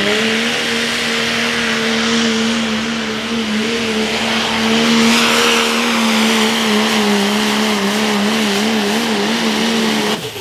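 Pro stock diesel pulling truck, a first-generation Dodge, running at full throttle down the pulling track with a steady high engine note. The pitch wavers over the last couple of seconds, and the engine sound drops away abruptly just before the end as the run finishes.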